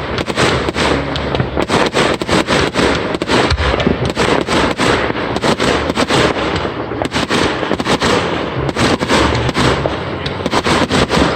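Fireworks going off in rapid succession: a dense run of sharp bangs, several a second, without a break.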